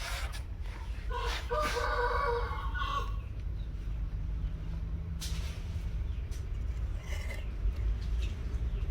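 A rooster crows once, a drawn-out call of about two seconds starting about a second in.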